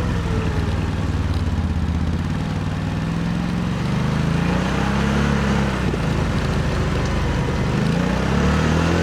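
CFMOTO CForce 1000 ATV's V-twin engine running under load, its pitch rising and falling as the throttle opens and closes: revving up about four seconds in, easing off around six seconds, then climbing again near the end.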